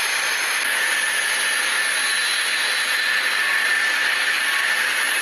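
Twin turboprop engines of a de Havilland Canada Twin Otter running as the aircraft taxis: a steady hissing rush with a thin, steady turbine whine.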